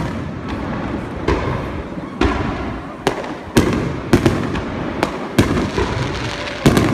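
Aerial fireworks shells bursting one after another in a finale barrage: about eight sharp booms at uneven intervals over a continuous din.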